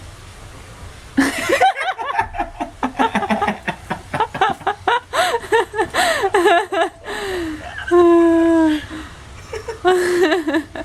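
People laughing hard and excitedly, starting suddenly about a second in with rapid bursts of laughter, then drawn-out vocal cries near the end.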